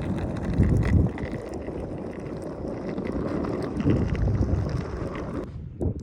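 Wind buffeting the microphone: a loud, rumbling rush of noise. Near the end there is a short thump, after which it is much quieter.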